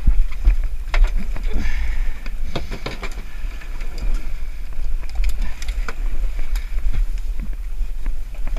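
Wind buffeting an action camera's microphone in a steady low rumble, with scattered knocks and clicks of fishing gear and handling against a small fibreglass boat's deck.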